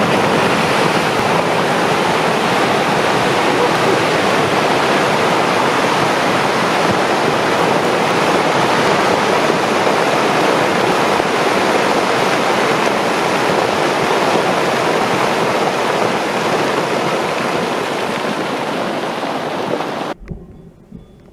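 Steady roar of a rockslide, rock and debris pouring down a slope in a continuous rush, cutting off abruptly near the end.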